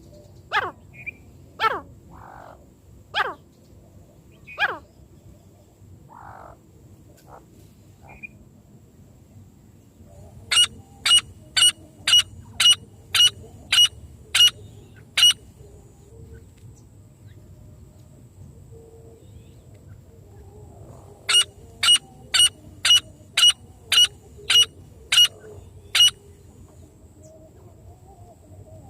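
Francolin (teetar) calling: a few falling notes at first, then, after a pause, two runs of about ten short, sharp notes at roughly two a second, with a pause between the runs.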